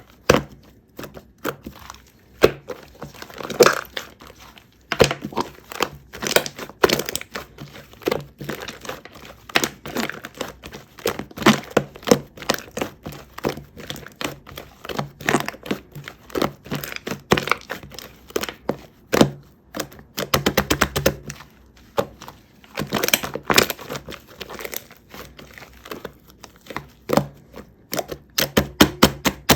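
Slime mixed with shaving foam and loaded with mix-in parts being squished and kneaded by hand: a dense, irregular run of sticky clicks, pops and crackles.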